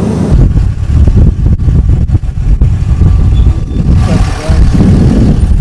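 Loud, irregular low rumble of highway vehicle noise with wind buffeting the microphone.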